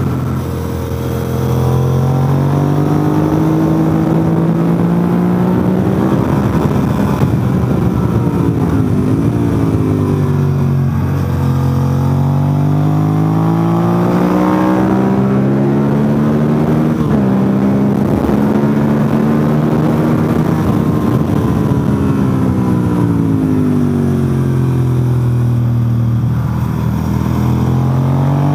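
Motorcycle engine under hard riding, its revs climbing and dropping several times as the bike accelerates out of corners and slows into them, heard from the rider's helmet with steady wind rush.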